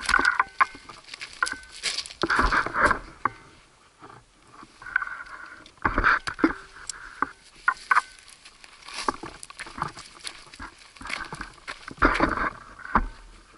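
Footsteps of a hiker and a guide dog crunching over loose rock and gravel, in irregular bursts with sharp clicks and knocks, along with rustling from the packs and gear being carried.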